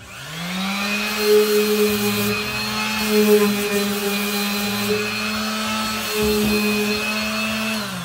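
Electric sander switched on, its whine rising over the first half second, then running steadily while sanding rust off a steel step rail, and winding down near the end.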